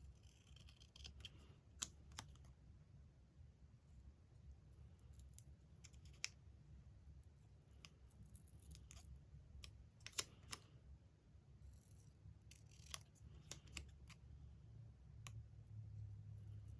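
Faint scissors snipping through magazine paper, with scattered small clicks and taps of paper being handled.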